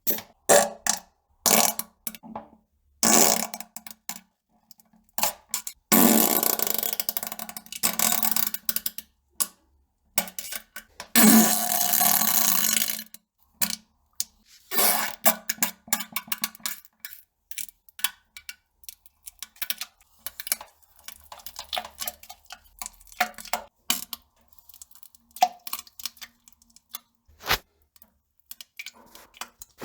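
Farting and pooping sounds: a string of short sputters and plops, with two long, noisy sputtering blasts of two to three seconds each, about six and eleven seconds in.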